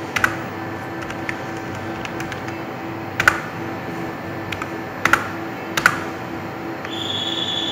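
Computer keyboard keys pressed a few at a time, sharp separate clicks while a patient's name is typed in. Under them runs a steady, evenly pulsing low hum, and a high steady electronic beep starts near the end.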